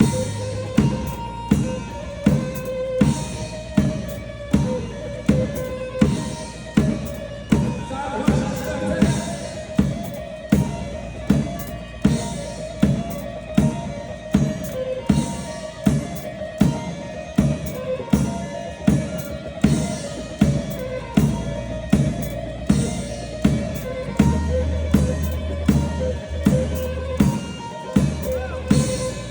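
Instrumental Turkish makam music with an even, steady drum-kit beat under a sustained melody line.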